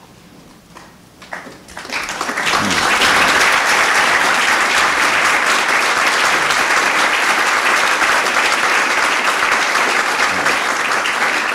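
Audience of dinner guests applauding: a short hush, then the applause swells about two seconds in and holds steady.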